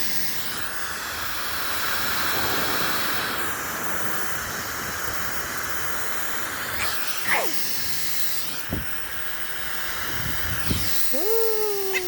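Hair dryer blowing with a steady hiss of air. Near the end a short, wavering pitched call sounds over it.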